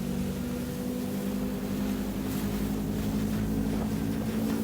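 An engine running steadily, a drone of several held tones.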